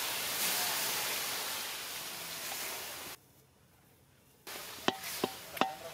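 Water poured into a hot iron kadai of cooking halwa mixture, hissing loudly as it hits the hot pan and boils off in steam; the hiss cuts off about three seconds in. Near the end a metal ladle stirs the mixture, knocking against the kadai in sharp ringing clanks about three a second.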